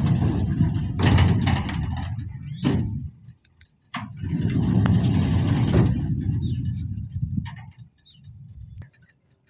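Motorised sliding gate rumbling along its track in two runs of about three seconds each, with a pause and clicks between them. A steady high insect trill, like crickets, runs underneath.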